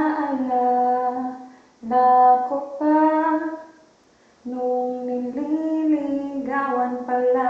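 A single voice singing a slow melody unaccompanied, in long held notes with short breaks between phrases.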